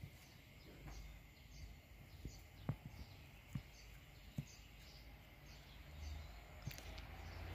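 Faint outdoor ambience: a short high chirp repeats about twice a second, with a few soft knocks around the middle.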